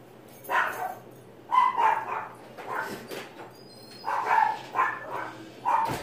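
A dog barking: a run of short, sharp barks in quick clusters, about a dozen in all.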